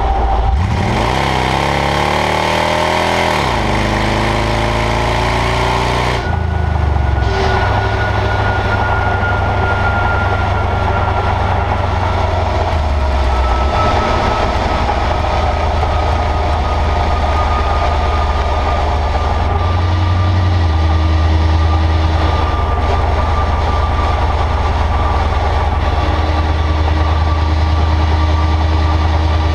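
Driving noise from under a 1998 Chevrolet Silverado: road and tyre noise over a low engine and exhaust rumble, with a thin whine that slowly falls in pitch. For about the first six seconds a louder rushing noise covers it, then stops abruptly.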